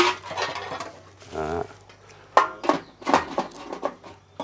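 Kitchenware clattering: sharp clinks and knocks of pots, pans and utensils, a couple at the start and a quicker run of four or five about two and a half seconds in.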